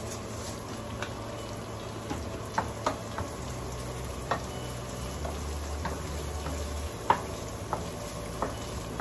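Sliced onion and ginger sizzling in a frying pan as they are stirred, with a scattered handful of sharp clicks from the utensil against the pan.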